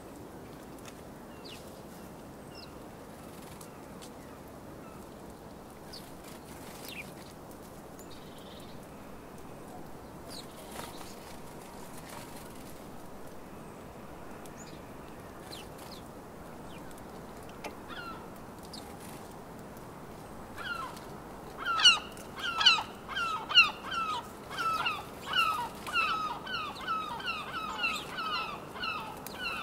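Scattered faint house sparrow chirps over steady background noise. About two-thirds of the way through, a gull starts a loud series of repeated yelping calls, about two a second.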